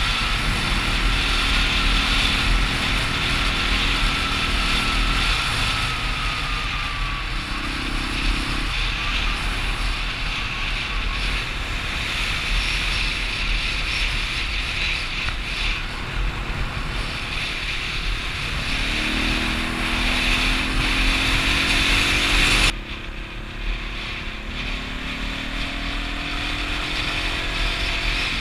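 Dual-sport motorcycle engine running on the road under heavy wind rush, its pitch climbing a few seconds before the end as it accelerates. About 23 seconds in, the rushing noise drops suddenly and the engine note carries on more quietly.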